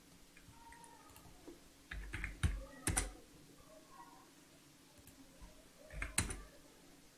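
Computer keyboard and mouse clicks as values are typed into a program: a short cluster of clicks about two to three seconds in and another around six seconds, with a faint hum underneath.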